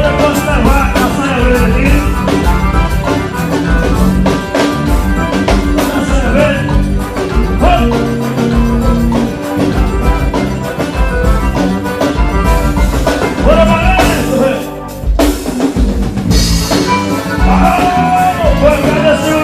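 Band music with a steady drum beat and bass under pitched melody lines; the band drops out briefly about fifteen seconds in.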